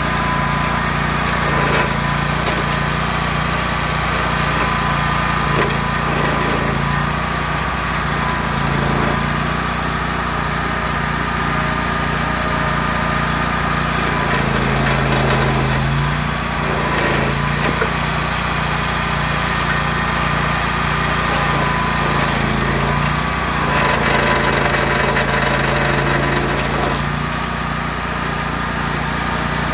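Rayco RG 1625 stump grinder's engine running hard while its six-tooth Green Teeth cutter wheel grinds into a stump. The engine note drops under load twice, about halfway through and again near the end.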